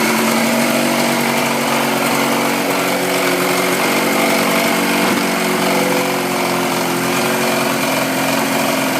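Force 50 hp two-stroke outboard motor running steadily at a constant speed.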